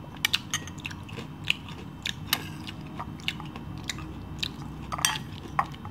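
Metal spoon clicking and scraping against an amber glass bowl while scooping porridge, a string of light, irregular clicks, mixed with the sounds of eating.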